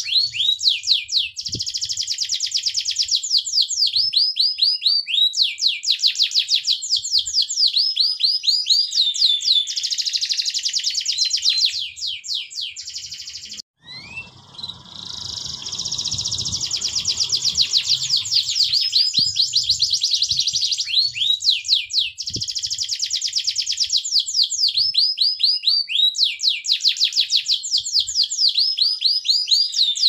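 Domestic canary singing continuously and loudly: fast trills and rolls alternating with runs of quick, repeated down-slurred notes. The song cuts out abruptly about halfway through and picks up again at once, with a faint low rumble under it for a few seconds.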